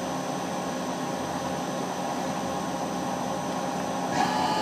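Hitachi Seiki HT-25D CNC lathe running with its ten-inch chuck spinning: a steady mechanical hum with a thin high whine. A little past four seconds the sound gets slightly louder and a higher tone joins in.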